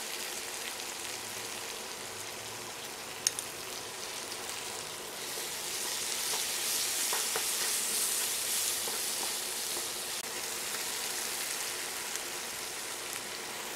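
Sliced onions with garlic and ginger paste sizzling in hot mustard oil in a frying pan, stirred with a wooden spatula. The sizzle grows louder for a few seconds midway, with a single sharp tap about three seconds in.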